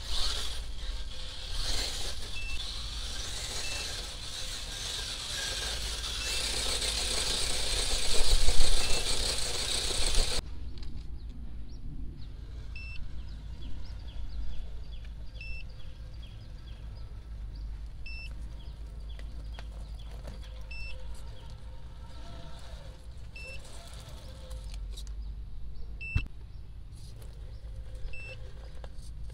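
Radio-controlled rock crawler being driven, its small electric motor and gears running under a loud hiss that cuts off suddenly about ten seconds in. After that the motor noise is quieter, with short high beeps repeating about every second and a half.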